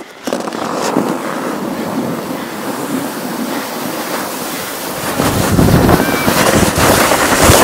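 Sled sliding fast down a snow-covered hill with the camera on board: wind buffeting the microphone over the scrape of the sled on snow. It gets louder and rougher from about five seconds in as the sled picks up speed.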